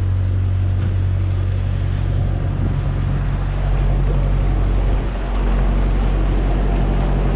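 Narrowboat's engine running steadily under way, a low, even drone.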